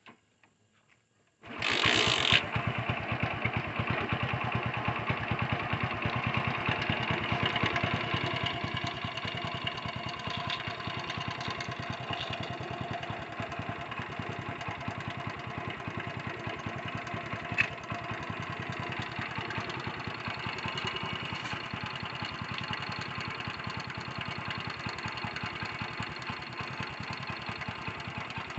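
Motorcycle engine started, catching about a second and a half in, then idling steadily without being revved. The idle runs a little louder for the first several seconds and then settles lower, with a single click partway through.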